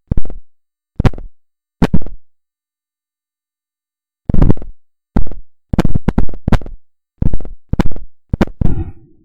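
Short bursts of buzzing noise, each sudden at the start and dying away within about half a second, in an irregular Morse-code-like pattern: three bursts, a pause of about two seconds, then about seven more in quicker succession. This is the strange signal from a refrigerator.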